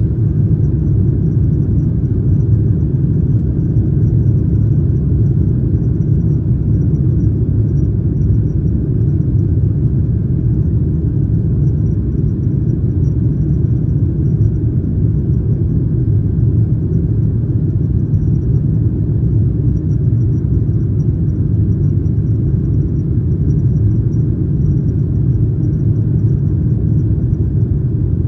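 Steady low rumble of a Boeing 737-900ER cabin in flight: the twin CFM56-7B engines and airflow over the fuselage, unchanging throughout, with a faint high whine above it.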